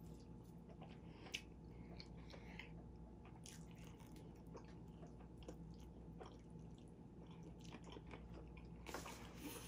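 Faint chewing of chicken and rice, with light clicks of a fork against a stainless steel bowl; one sharper click about a second and a half in.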